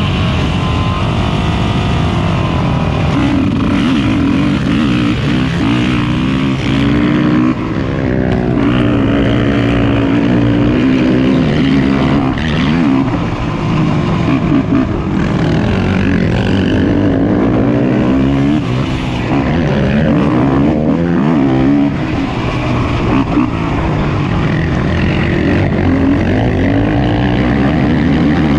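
Racing ATV engines revving hard, the pitch rising and falling again and again with the throttle. Several engines overlap.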